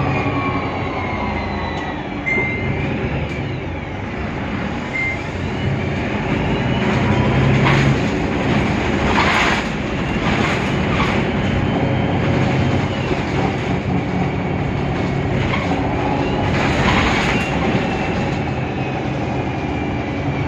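Mercedes-Benz Citaro city bus running under way with its OM 906 hLA diesel engine and Voith DIWA automatic gearbox, a steady engine hum overlaid by a whine that glides up and down in pitch. Several short bursts of hiss come through the middle and again near the end.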